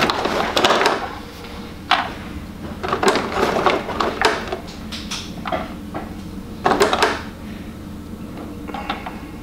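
Small statue parts being handled and fitted by hand: irregular clicks, knocks and rustling, with sharper knocks about two seconds in and near seven seconds.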